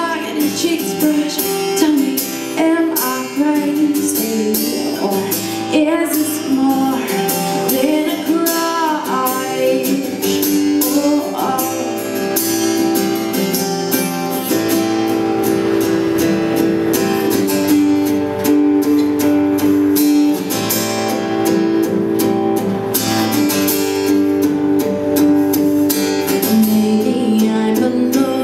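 Live acoustic music: a steel-string acoustic guitar strummed in chords, with a woman singing over it.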